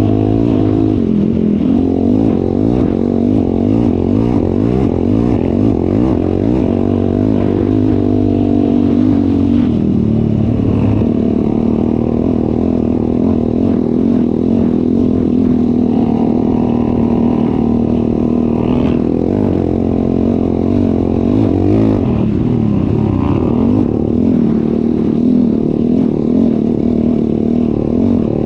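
ATV engine running while riding, its pitch rising and falling with the throttle throughout.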